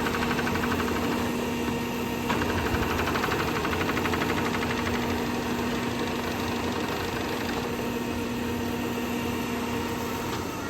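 Kingston HR3000 engine lathe running, with the steady whine and hum of its gearing and power rapid traverse driving the carriage. The hum stops about ten seconds in.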